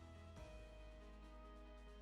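Quiet background music of sustained chords, changing chord about half a second in.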